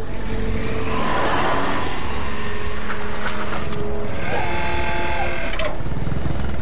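Sound effects of a wheeled armored military vehicle driving: a loud, steady engine rumble with a mechanical whirring, and a brief high motor whine a little after four seconds in.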